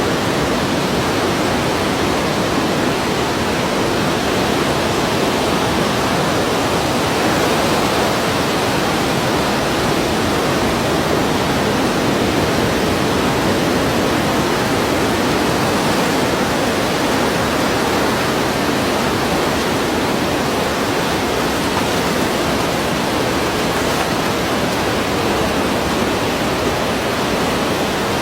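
Steady, unbroken rushing of water, heard as continuous surf noise with no separate waves swelling and falling away.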